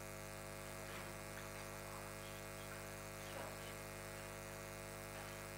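Steady electrical mains hum with its overtones in the microphone audio line, over faint room tone.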